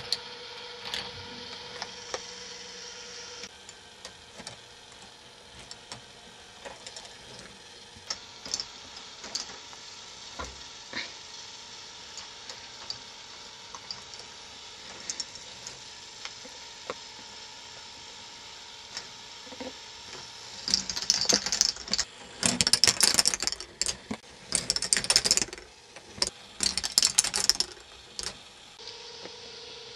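K'NEX ball machine running: a steady motor hum under scattered clicks of plastic balls and parts moving through the lifts and tracks. About two-thirds of the way through comes several seconds of dense, loud rattling clatter in a few bursts.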